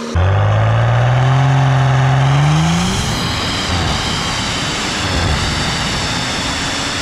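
Stage 2 BMW M135i's turbocharged 3.0-litre N55 inline-six, through a full exhaust with a 300-cell cat and M Performance tips, accelerating hard with its pitch rising steadily for about three seconds. It then eases off into a lower, rougher rumble.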